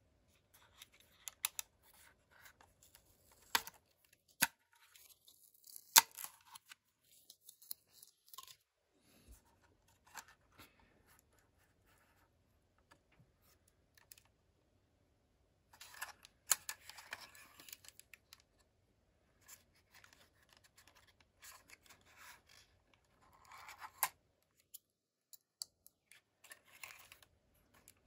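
Handling noise from a DJI Mini 2 drone: its battery-cover label being peeled off and its plastic arms swung open, heard as scattered sharp clicks and short scraping rustles with quiet gaps between.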